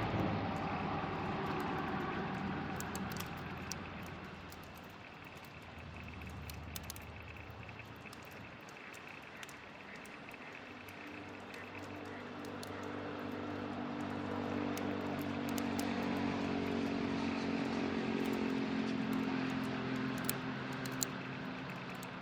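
A distant engine drone that fades away and then swells up again, over sparse sharp crackles from a wood fire.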